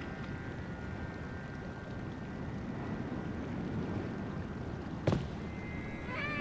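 Steady outdoor background hiss with no clear pitch, and one sharp knock about five seconds in. Film music with a sustained melody comes in just before the end.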